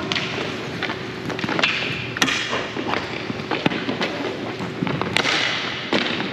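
Scattered sharp knocks and thuds of game play, about ten of them at irregular spacing, with short rushes of hiss about two and five seconds in, over a steady background murmur.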